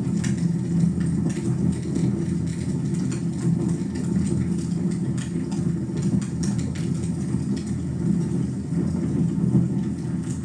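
Wood fire burning in a fireplace: a steady low roar of the flames with scattered crackles and pops throughout.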